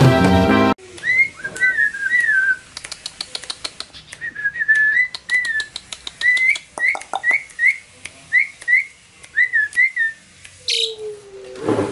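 Short whistled notes repeated in quick pairs and runs at about one pitch, with a patter of quick clicks, made to a tame Asian pied starling in its cage.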